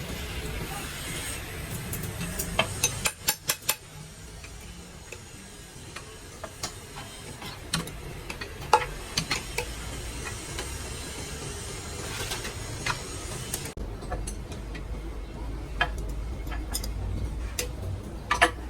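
Scattered metal clicks and knocks of hand tools and parts being handled, some in quick clusters, over a low steady hum. The background hum changes abruptly about 14 seconds in.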